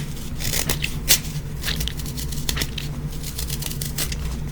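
Something soft and squishy being squeezed and crushed by hand, giving irregular crackling clicks over a low steady hum.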